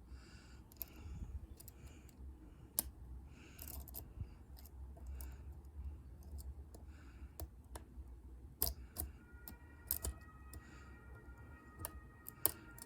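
A lock pick clicking and scraping against the pins of a dimple-key Euro cylinder held under tension, in scattered faint ticks with a few sharper clicks.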